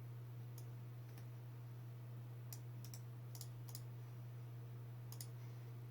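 A handful of sharp computer mouse clicks, scattered and some in quick pairs, as the list of names is randomized on screen, over a steady low electrical hum.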